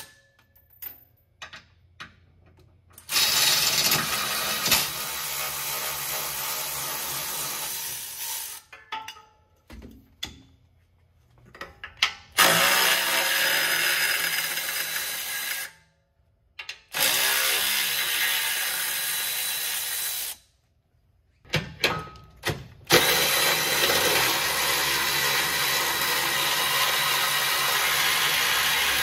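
Cordless electric ratchet running in four bursts of a few seconds each, spinning 13 mm nuts off the exhaust flange and hanger studs. There are short quiet gaps with a few clicks between runs.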